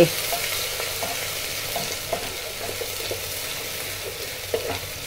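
Sliced onions sizzling steadily as they fry in hot mustard oil in an aluminium pressure cooker, a spatula scraping and stirring through them, with a couple of light knocks near the end. The onions are at the stage of browning to a light pink.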